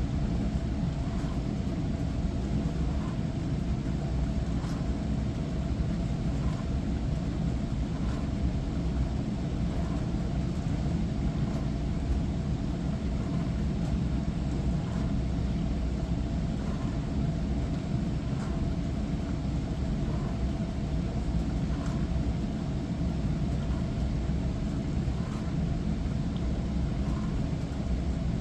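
Hava glass-front dishwasher running its wash cycle: a steady rumble of the pump and water spray with a constant hum, and light ticks roughly once a second.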